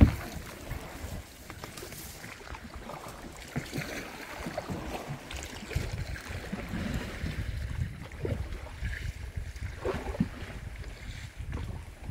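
Small boat paddled on a shallow river: scattered splashes and light knocks of paddle and water against the hull, over a low wind rumble on the microphone. A sharp knock comes right at the start.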